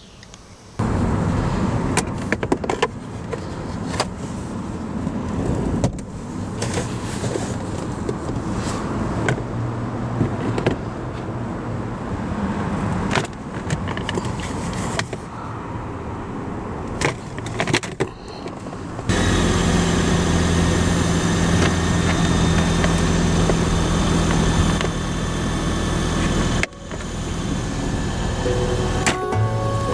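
A car running with its ventilation blowing: a noisy rush with scattered clicks and knocks, changing about two-thirds in to a steadier hum with a low drone.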